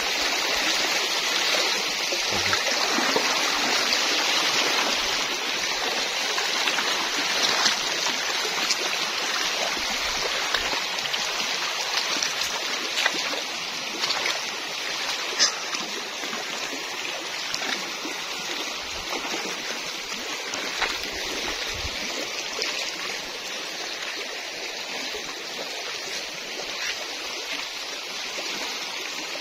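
Shallow, fast-flowing rocky river rushing steadily over stones, with a few brief splashes.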